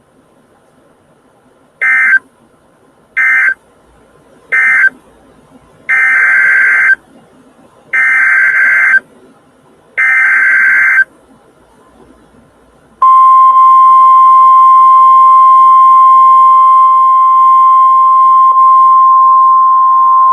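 NOAA Weather Radio alert signals over a weather radio's speaker. Three short bursts of digital data tones mark the end of the previous message, then three longer one-second bursts carry the header of a new alert. About thirteen seconds in, the steady, loud 1050 Hz attention tone begins.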